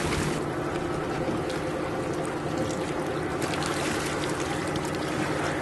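Water splashing and then streaming and dripping off a man in a drysuit as he hauls himself out of the sea up the side of a small yacht, over a steady low hum.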